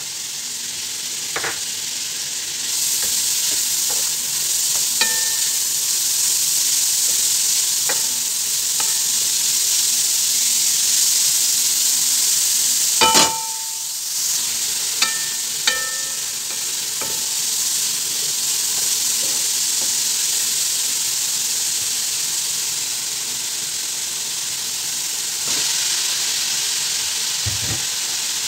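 Grated carrot and garlic frying in oil in a metal pan, a steady sizzle. A wooden spatula stirs them, with a few knocks and clinks on the pan; the loudest, ringing one comes about halfway through, and there is a dull thump near the end.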